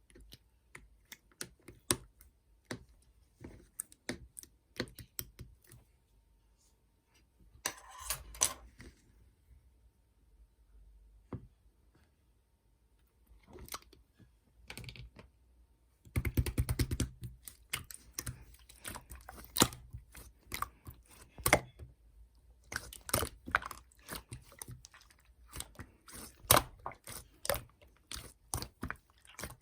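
Blue slime being squeezed, stretched and folded by hand as gold glitter is mixed in, giving irregular sticky clicks and pops. The clicks are sparse at first, come in a short cluster about eight seconds in, then turn into dense crackling runs just past the middle and through the last part.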